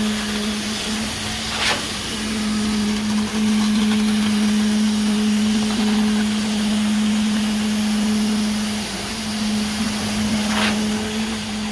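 Concrete-pouring machinery running with a steady, constant hum over a noisy wash, with two short sharp knocks, one about two seconds in and one near the end.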